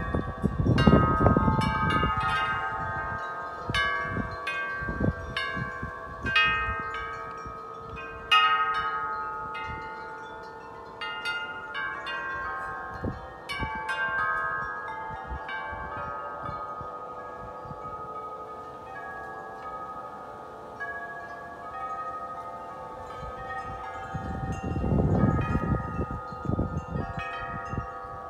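Wind chimes ringing continuously in gusty wind, many overlapping struck tones ringing on. Low wind rumble on the microphone in gusts at the start and again near the end.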